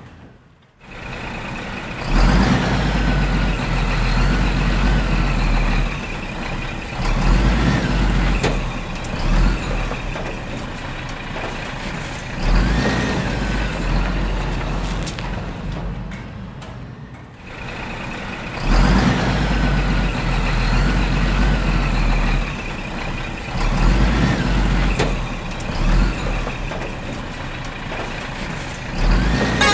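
Heavy truck engine sound effect laid over the toy play: a loud, steady low rumble. It drops out briefly near the start and again about halfway through, then comes back.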